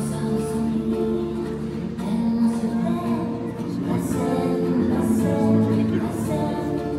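Figure skating program music playing over the rink's sound system, a melody with a singing voice.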